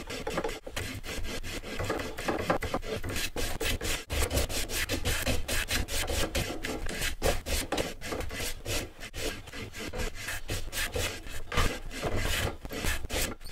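Hand plane cutting across the end grain of an ash leg in short, rapid strokes, each a quick scraping rasp of the blade taking a shaving.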